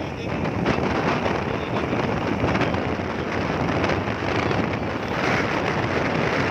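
Steady wind buffeting a phone microphone while riding along a road, with vehicle and road noise underneath.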